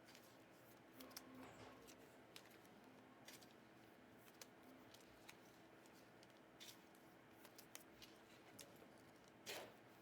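Faint handling of trading cards: scattered light clicks and soft rustles as cards are flipped and sorted, with a louder rustle near the end.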